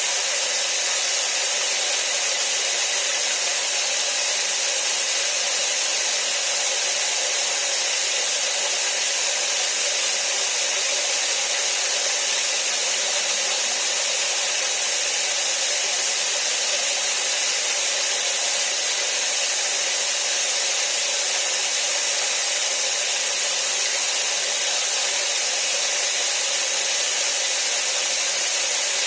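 Steady, even hiss of falling rain, mostly high-pitched and unchanging.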